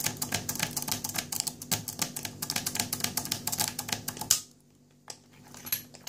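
Lock pick raking the pins of a cheap KORJO TSA luggage padlock under tension: fast, irregular clicking and scraping for about four seconds. It ends in one sharper click, followed by a few faint clicks near the end.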